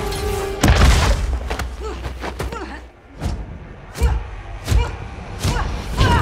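Fight sound effects: heavy punches and body blows landing with thuds. The loudest comes about a second in, with a low rumble, and a quick run of sharper hits follows in the second half.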